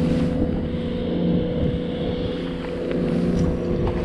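A steady engine drone holding one even pitch, with wind rumbling on the microphone.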